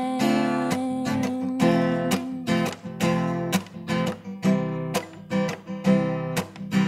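Acoustic guitar strummed in a steady rhythm: an instrumental stretch between sung lines of a song, the chords ringing between strokes.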